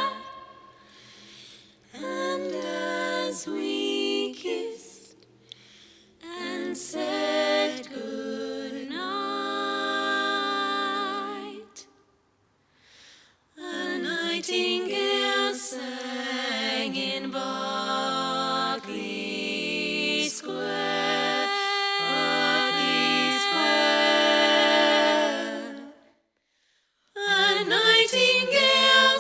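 A cappella vocal harmony: several voices singing sustained chords without clear words, in long phrases separated by brief pauses.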